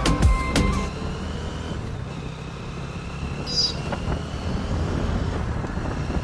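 Background music cuts off about a second in, leaving steady road-vehicle and traffic noise with a low rumble. A brief high squeak sounds a little past halfway.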